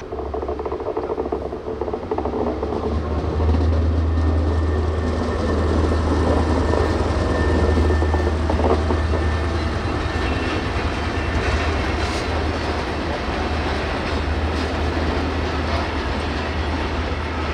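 Diesel locomotive hauling a train past on the track: a steady low engine drone with the rumble of wheels on rails, growing louder over the first few seconds.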